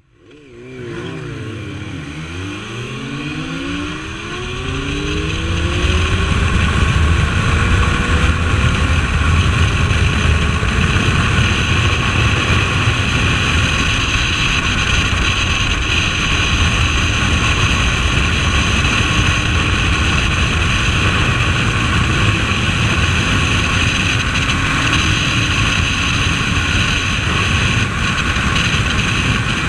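Motorcycle, the Suzuki Bandit 1250S with its inline-four engine, accelerating with its pitch climbing over the first five seconds or so. It then runs on steadily at speed, with loud wind rush over the microphone.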